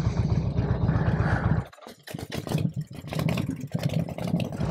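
Harley-Davidson Road King V-twin running at low speed with a steady pulsing rumble, which cuts off suddenly a little under two seconds in. After a brief gap comes a stretch of uneven clatter and knocks.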